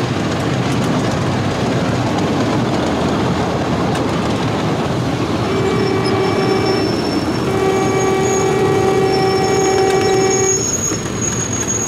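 Electric ride-on miniature train running along its track, a steady rumble and clatter of the cars' wheels on the rails. About halfway through, the locomotive's horn sounds twice: a short blast, then a longer one of about three seconds.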